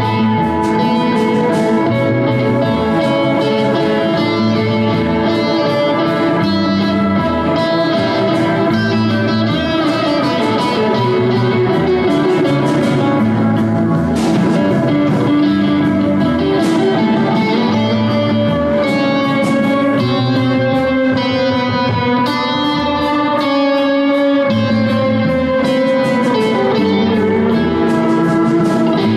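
Live rock band playing, with an electric guitar taking the lead over a stepping bass line and drums.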